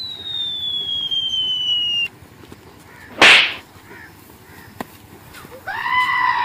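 Cartoon-style comedy sound effects. A long falling whistle glides down for about two seconds, then a sharp, loud whip-like swish and smack lands as a hit a little after three seconds in. Near the end a held, steady tone begins.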